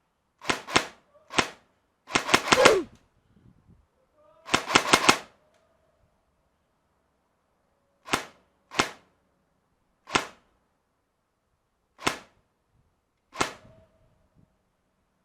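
Airsoft gun firing: a couple of quick shots, two short rapid bursts, then single shots every second or two.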